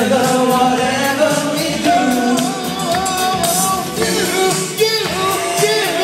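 Karaoke backing track playing through a PA with a man's voice singing over it, in long held notes that change every second or so.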